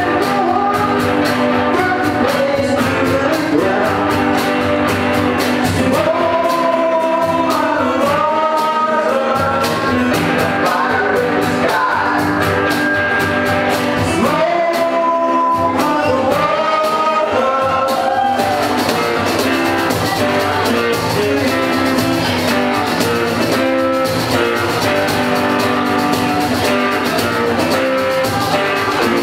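Live rock band playing a song with guitar, and a singer's voice carrying the melody mainly through the middle stretch.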